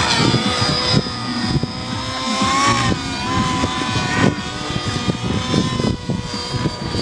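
Radio-controlled model helicopter flying overhead: a steady high whine from its motor and drivetrain over the rough noise of the rotors, wavering slightly in pitch as it manoeuvres.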